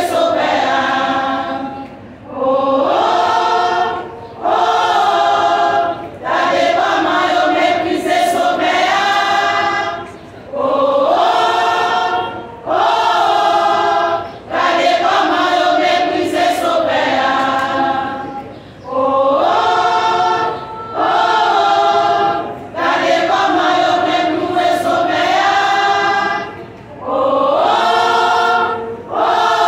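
Women's church choir singing a hymn together in phrases about two seconds long, with short breaks between them.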